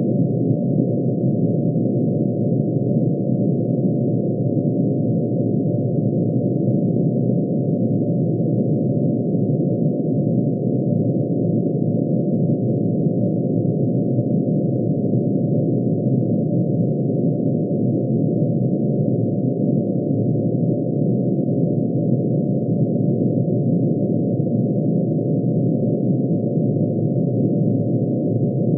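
Synthesized tone made from mercury's atomic emission spectrum, each spectral line rendered as a sine wave pitch-shifted into hearing range and all summed together: a dense, steady, unchanging drone of many tones packed between low and mid pitch.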